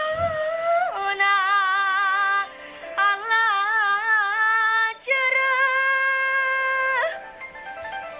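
A girl soloist singing long held notes with a wide vibrato, in four phrases with short breaks between them, over a faint steady low hum.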